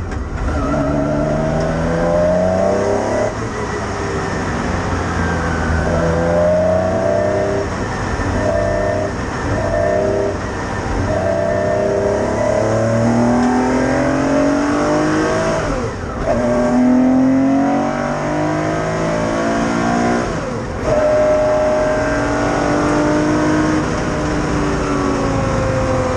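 1968 Porsche 911's air-cooled flat-six engine heard from inside the cockpit, pulling hard through the gears. Its pitch climbs and then drops back at each upshift, several times.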